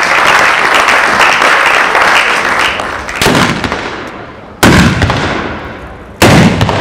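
Applause for the first three seconds or so. Then a ceremonial salute from hand-held guns: three loud shots about a second and a half apart, each followed by a long echoing tail, the first a little weaker than the other two.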